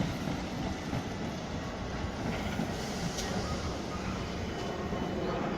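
Class 455/8 electric multiple unit running past, still on its original traction motors: a steady rumble of wheels and running gear on the track.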